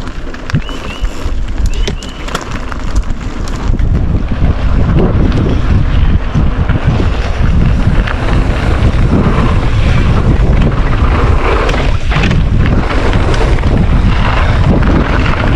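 Wind buffeting the microphone of a camera on a moving mountain bike, a heavy low rumble that grows louder over the first few seconds and then holds, with scattered sharp clicks and knocks early on.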